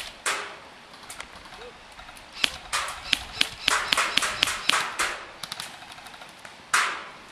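Airsoft guns firing: scattered sharp cracks, then a quick string of them about three to five seconds in, with a louder single crack near the end.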